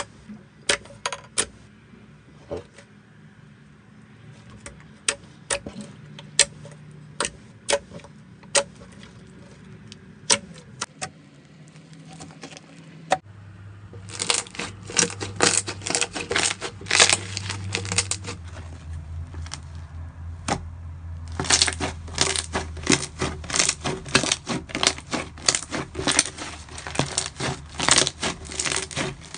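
Slime being pressed and squeezed by hand, making sticky clicks and pops: scattered at first as clear blue jelly slime is pressed, then dense crackling about fourteen seconds in as a stretchy blue slime is pulled and squished.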